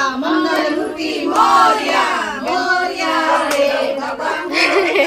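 A group of voices singing a devotional song together.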